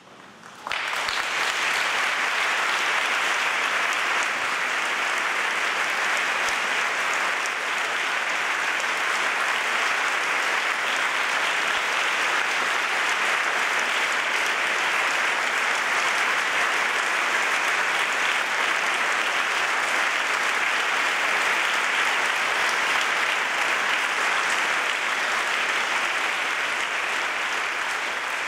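Audience applauding at the end of a piece. The applause breaks out about a second in, carries on as a steady, dense clapping, and eases slightly near the end.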